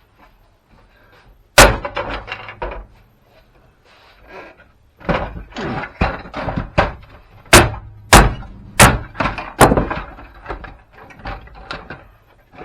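Hammer blows breaking apart an old printer's plastic housing and parts: one hard blow, then after a pause a run of hard knocks and cracks, the loudest four in quick succession.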